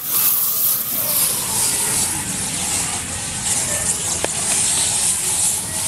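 Aerosol spray can spraying in one long, continuous hiss.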